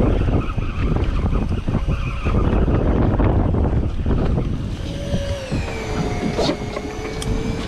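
Heavy wind buffeting the microphone on a boat at sea, with the sea and the boat underneath. About five seconds in, a steady whine comes in and holds, dipping slightly in pitch.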